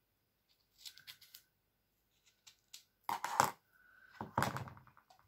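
Adhesive tape being pulled off its roll: a short faint rasping screech about a second in and a louder rapid ticking screech around four seconds in. Just after three seconds, sharp clicks and knocks of the tape roll and dispenser being handled on the cutting mat.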